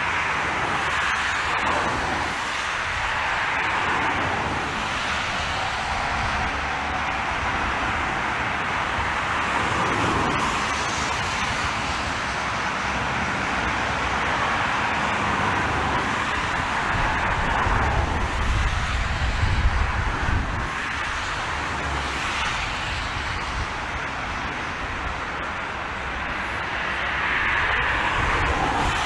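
Airbus A380's jet engines on a crosswind landing approach, a steady rushing noise, with a bout of low rumbling about two-thirds of the way through.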